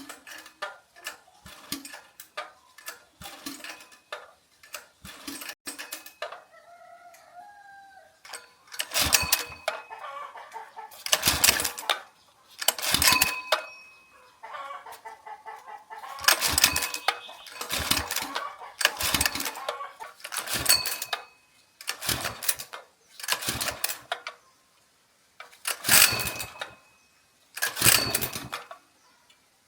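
Kawama 5.5 HP small gasoline engine being pull-started over and over: about ten short, loud cranking bursts from the recoil starter, beginning about nine seconds in. Chickens cluck in the background before the pulls begin.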